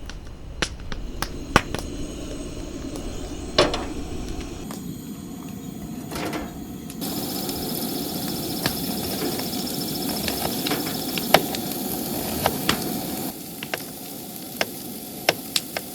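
Camp-stove cooking: irregular sharp taps and knocks of utensils on cookware, over food sizzling in a pan as precooked chicken is reheated. The sizzle grows louder about seven seconds in and eases off a little near the end.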